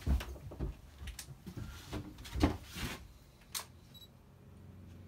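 Handling noise from someone leaning into a wooden engine compartment: a string of knocks and clicks with clothing rustle, the loudest about halfway through. A short high electronic beep comes about four seconds in.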